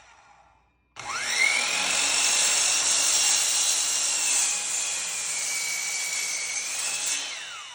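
10-inch electric miter saw spinning up with a fast rising whine about a second in, running through a cut in a 6x6 post with its pitch sagging slightly under load, then switched off and winding down near the end.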